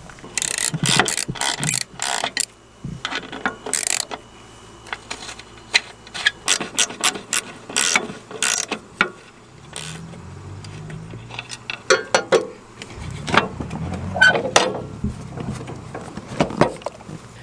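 Hand tools working on metal as the old seat and its mounting plate are unbolted from a Cub Cadet garden tractor: runs of sharp metallic clicks and clanks, with a low scraping rumble about two-thirds of the way in.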